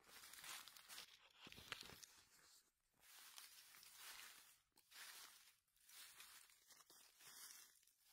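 Faint rustling and crunching of dry leaf litter, underfoot and under hand, in uneven bursts a second or two long.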